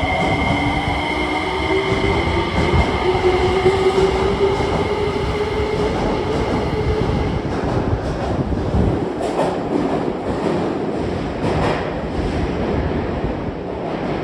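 JR Kyushu 303 series electric train pulling away: a traction-motor whine of several tones rises slowly in pitch over the running noise and fades out about halfway through. It gives way to the rumble of the wheels with a series of sharp clacks, growing quieter near the end.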